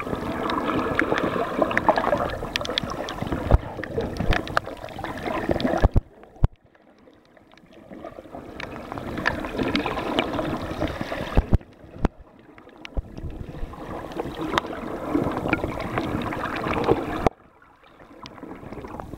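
Muffled water noise picked up by a waterproof camera held underwater: churning and gurgling with scattered clicks, swelling and dropping away three times in brief quiet gaps.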